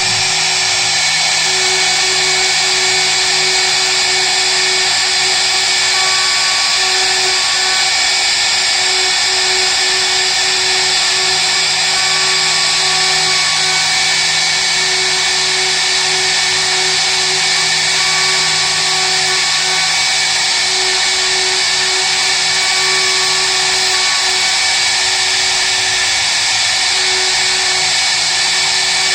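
High-speed spindle of a small CNC mill running a 2 mm single-flute endmill as it cuts the stock, giving a loud, steady, high-pitched whine and hiss of cutting.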